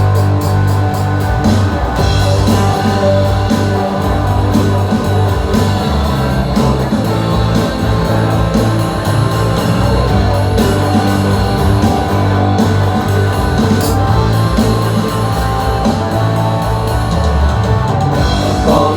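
Rock band playing an instrumental passage of a song live, with guitar and drum kit and no singing.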